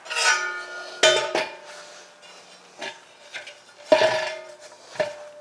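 Metal tools, a socket and wrench, clinking and knocking against a steel table base: about five sharp strikes, several of them ringing briefly.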